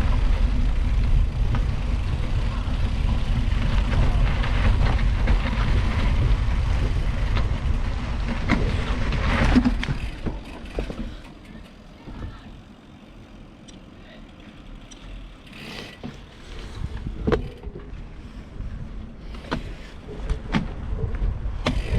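Steady low rumbling noise of a gravel bike being ridden, with wind on the microphone. About ten seconds in it drops away to a much quieter stretch with scattered sharp clicks and knocks.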